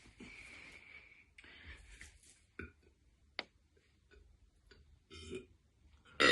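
A woman's short burp bursts out right at the end, which she calls a little one. It comes after a few seconds of soft breathy sounds and a couple of faint clicks.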